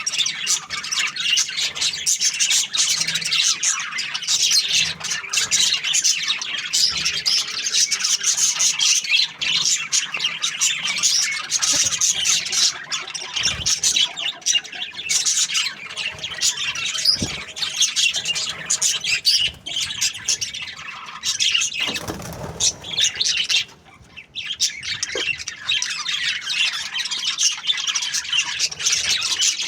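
Budgerigars chirping and chattering in a dense, continuous stream of fast, high squawks and warbles, with a brief lull about three quarters of the way through.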